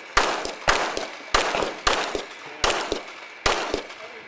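Six pistol shots from an Open-division race pistol fired on a USPSA stage, spaced roughly 0.6 to 0.8 seconds apart. Each shot echoes briefly.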